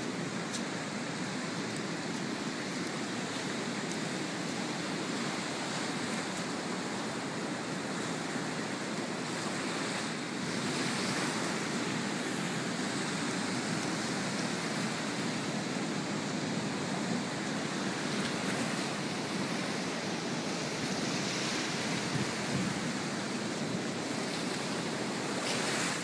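Ocean surf breaking offshore and washing up the sand, a steady rushing noise that gets a little louder about ten seconds in.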